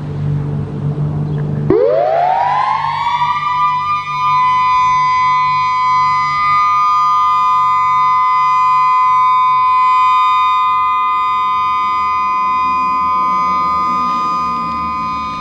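Federal Signal EOWS 612 electronic outdoor warning siren sounding its steady Alert tone in a test. About two seconds in it sweeps up from a low pitch, then holds a steady high tone of two close notes. Before it starts there is a low steady hum.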